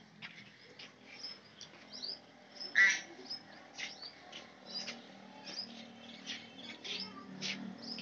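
Small birds chirping, with short high calls repeating several times a second and one louder call about three seconds in, over a faint low hum.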